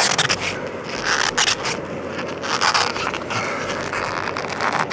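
Foam-insulated copper refrigerant lines and signal wire of a mini split scraping and rubbing as they are pulled out through a hole in the wall, in a series of irregular strokes.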